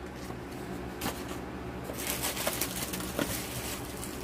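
Packaging being handled: light clicks and rustling as items are taken from the subscription box, busier in the second half, over a steady low hum.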